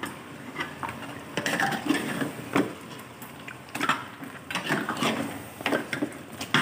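Metal spatula stirring bone-in beef pieces in masala inside an aluminium pot, with irregular scrapes and clinks of metal against the pot.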